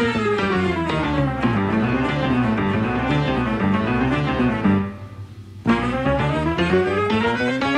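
Instrumental background music at a steady level, with a break of about a second around five seconds in before it resumes.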